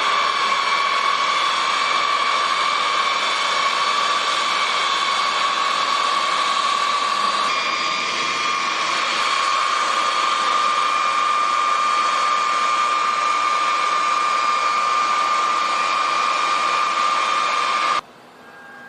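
B-52 bomber's jet engines running with a steady high whine over a rushing hiss. The tone steps up slightly about halfway through, and the sound cuts off suddenly near the end.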